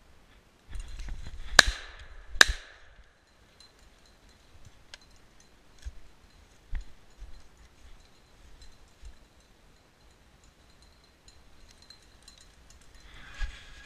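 Two 20-gauge shotgun shots fired at a woodcock, under a second apart, after a burst of rustling; then faint twig snaps and rustling of steps through dry leaves.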